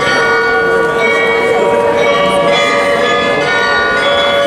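Carillon bells of Munich's Rathaus-Glockenspiel playing a tune: notes are struck one after another and ring on over each other.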